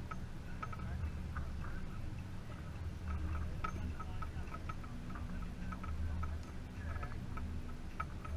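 Open-water ambience on a small boat: a low steady rumble with light, irregular clicks and ticks scattered throughout.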